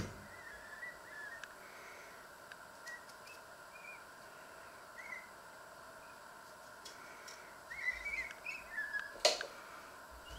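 Short, high chirps like small birds calling, scattered and busiest near the end, over a faint steady hum. A single sharp click comes about nine seconds in.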